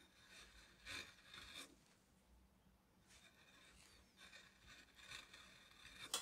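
Carving gouge paring curled shavings from tulip tree wood: three faint, slow scraping cuts, each about a second or two long. A sharp click near the end is the loudest sound.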